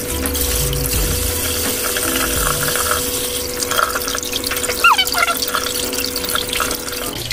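Kitchen tap running steadily, water splashing over a hand and onto a pan and mugs in a stainless steel sink. A brief high chirp about five seconds in.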